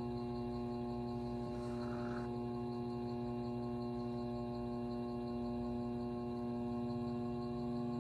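Background music: one steady held chord, a drone of several pitches.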